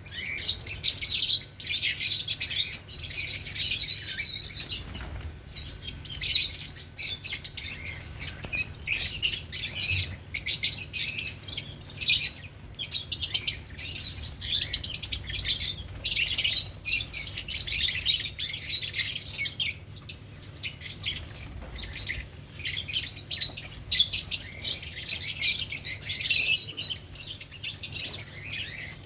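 Lovebirds chirping and chattering non-stop in high-pitched, overlapping calls with brief pauses, over a faint steady low hum.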